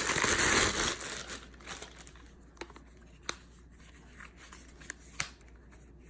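Packaging crinkling and rustling as headphones are lifted out of their box, loud for about the first second, then a few light clicks and taps of handling.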